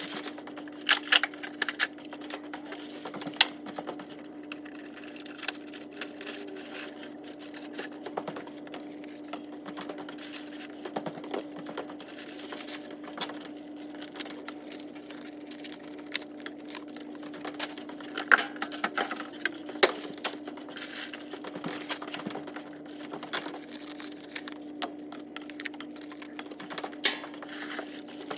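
Items and packaging being handled: scattered clicks, knocks and crinkling, over a steady low hum.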